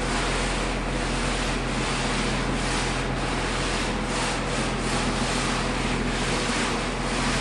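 A straightedge scraping over wet sand-cement floor screed, over the steady drone of a running machine.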